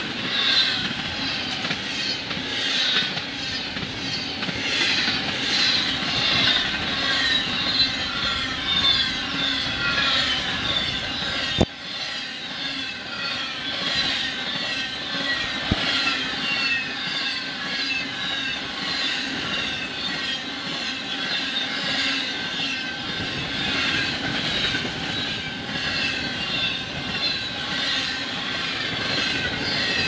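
Intermodal freight cars rolling past at speed: a steady rumble of steel wheels on rail with a high wheel squeal running through it.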